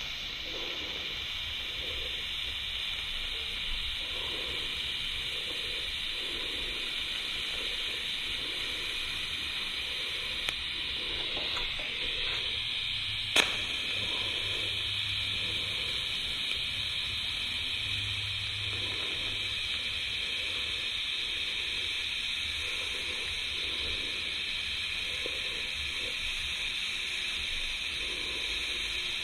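TIG welding arc running continuously as a bead is laid: a steady hiss with a low buzz underneath, and one sharp click about halfway through.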